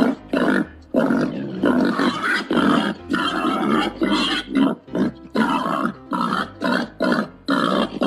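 Babirusa grunting in a long series of short grunts, about two or three a second.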